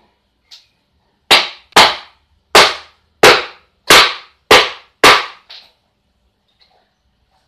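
Small hammer striking the plywood of a miniature wooden house: seven sharp, loud blows about two-thirds of a second apart, with a lighter tap before and after them.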